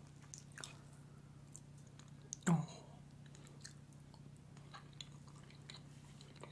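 A fork cutting into a slice of cheesecake on a plate, then a bite and quiet, soft chewing with small mouth clicks. One louder sound about two and a half seconds in.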